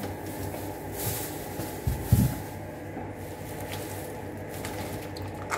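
Groceries being handled while being unpacked from a plastic shopping bag: rustling and handling noises, with two low thumps about two seconds in. A steady hum runs underneath.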